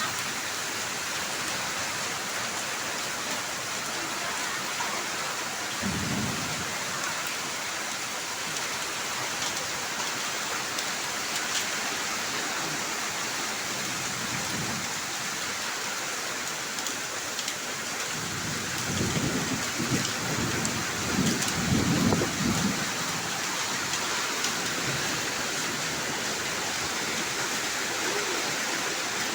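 Heavy downpour of rain and hail, a steady hiss, with low rumbles swelling about six seconds in and again, loudest, from about nineteen to twenty-three seconds in.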